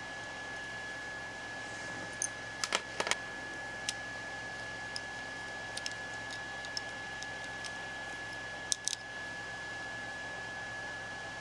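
Small sharp clicks of plastic and metal airsoft trigger-assembly parts being handled as the selector crankshaft is twisted out of the housing, a cluster about two to three seconds in, scattered single ticks, and a pair near the end, over a steady hiss with a constant high tone.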